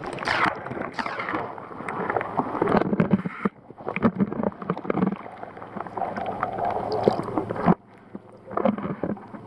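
Water sloshing and gurgling around a camera held underwater, with scattered knocks and rattles of handling. The sound drops away abruptly twice.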